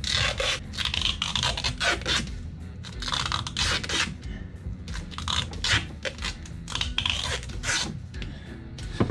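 Irregular scraping and rustling of hands and parts being worked loose inside a sailboat's engine compartment, a quick scrape every half second or so, over a low steady hum.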